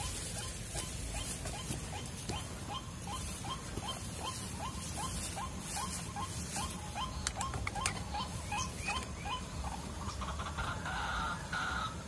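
White-breasted waterhen (ruak-ruak) calling a long, even series of short rising notes, about three a second, that stops about nine seconds in. A different, slightly louder sound takes over near the end.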